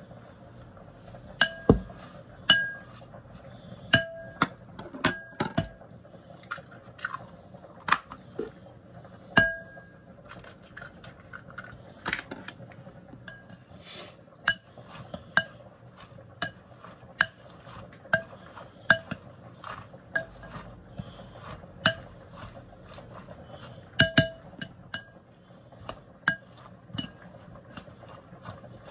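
Metal spoon clinking against a glass mixing bowl while tossing spinach leaves. The clinks come irregularly, about one a second, each with a short glassy ring.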